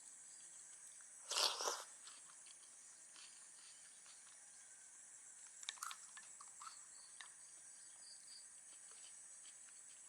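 Eating sounds of a spoonful of Thai tapioca dessert being taken and chewed, a louder mouthful about a second and a half in and small clicks around six seconds, over a steady high-pitched chorus of crickets.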